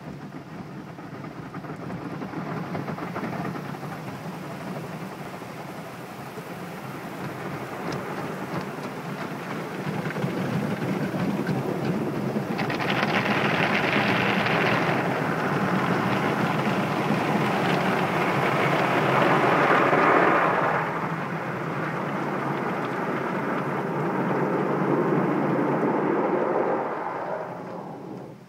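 Water jets and brushes of an automatic car wash spraying and scrubbing over a car, heard from inside the cabin. The noise swells and eases in waves, loudest around the middle, and dies away near the end.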